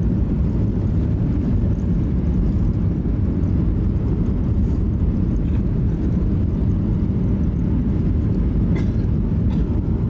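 Steady low rumble inside the cabin of a Boeing 737 airliner rolling along the runway just after touchdown, its wing spoilers raised as it slows.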